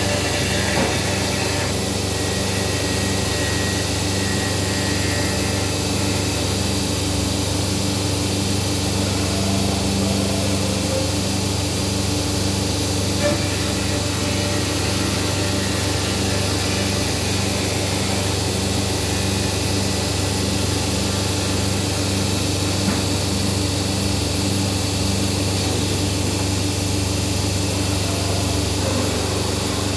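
Morbidelli Author 430 S/3 woodworking CNC machining centre running steadily, a constant machine hum with a regular pulsing throughout.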